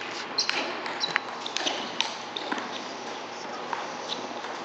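Table tennis ball clicking off bats and table in a rally: sharp clicks about every half second for the first two seconds or so, with a couple of short high squeaks near the start, then a few scattered taps.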